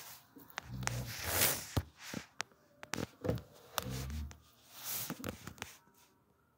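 Scattered soft clicks and taps with brief rustling and a couple of short low thumps, about a second in and again about four seconds in: close movement and handling noise in a small room.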